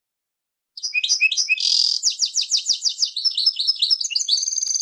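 A songbird's song, starting about a second in: a few quick high chirps and a buzzy note, then a fast trill of down-slurred chirps at roughly eight a second, then more varied twittering.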